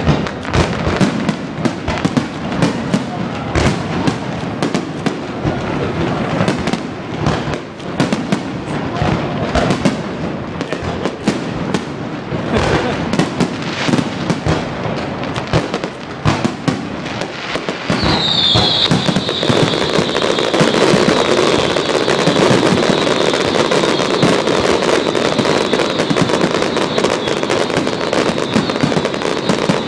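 Fireworks display: a dense, continuous run of bangs and crackles. About two-thirds of the way through, a high whistle comes in and holds steady while the crackling thickens.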